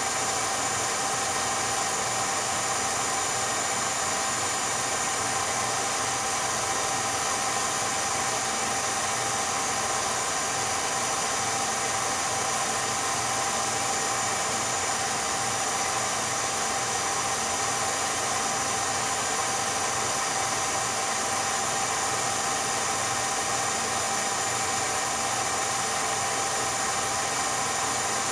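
Steady mechanical whir and hiss of an 8mm film projector running, with a few constant whining tones and no change in level.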